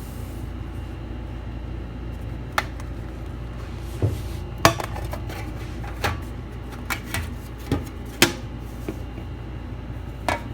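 Small metal tools and parts clicking and clinking on a workbench, about a dozen sharp, irregular taps, over a steady low background hum.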